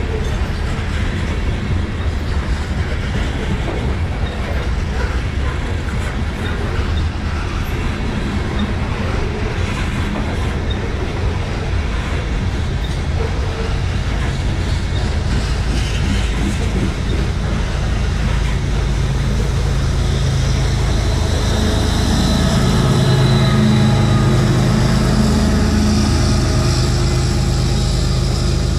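Loaded covered hopper cars of a KCS grain train creeping slowly past up a grade, with a steady rumble, wheels clicking over rail joints and light wheel squeal. Over the last several seconds a diesel locomotive's engine hum rises and becomes the loudest sound.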